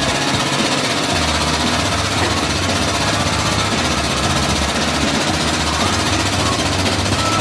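Power tool cutting into the steel of the old bumper bracket, running loud and steady without a break.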